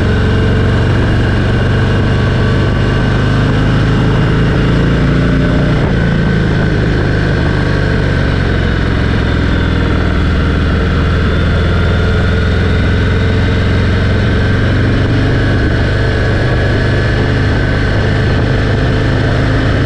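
Cruiser motorcycle's engine running steadily at road speed, heard from a helmet-mounted GoPro together with a steady rush of wind noise.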